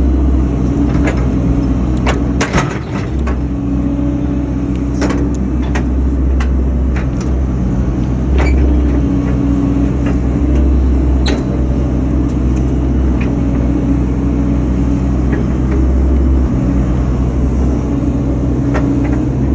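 Excavator diesel engine running steadily, heard from inside the cab, with its level shifting as the machine works, and scattered sharp knocks throughout, several close together about two to three seconds in.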